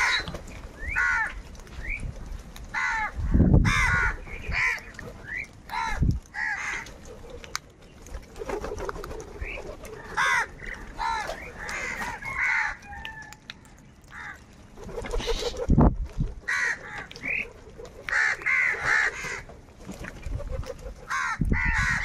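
A flock of house crows cawing: many short, harsh calls following and overlapping one another throughout. Three loud low thumps stand out, about three and a half seconds in, at six seconds and at about sixteen seconds.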